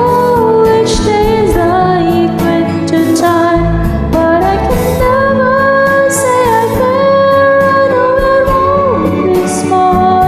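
A song with a woman singing a slow melody in long held notes, over bass and light percussion.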